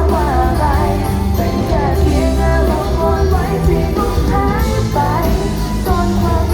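A pop song performed live with a band: a woman's singing voice over a strong, steady bass line.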